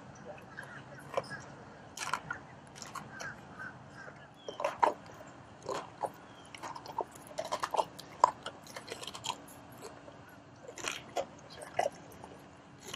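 Male lion chewing raw meat on the bone: irregular wet bites and crunching cracks, the loudest about five and eight seconds in.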